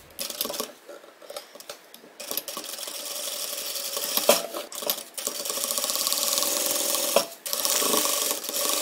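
Sewing machine stitching a side seam, quiet and halting at first, then running steadily from about two seconds in with a few brief stops.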